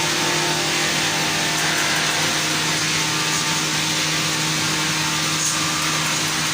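Beam-making circular-saw machine running steadily: a constant machine hum with a few held tones over a broad hiss.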